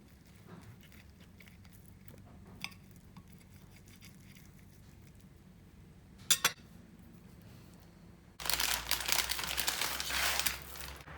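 Kitchen handling sounds during food preparation: faint small knocks, one sharp clink of glass or crockery about six seconds in, then about two seconds of loud, dense rustling near the end.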